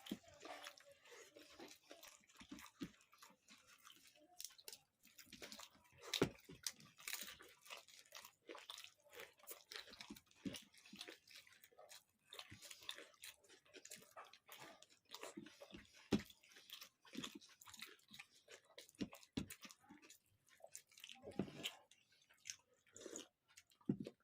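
Close eating sounds: chewing and biting into food, with irregular crunches and mouth clicks.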